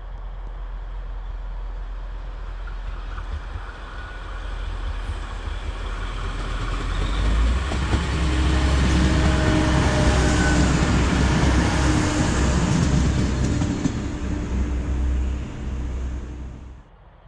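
A diesel train passing: it grows louder over about eight seconds, stays loud for several seconds with a low rumble and a few steady engine tones, then fades and cuts off suddenly near the end.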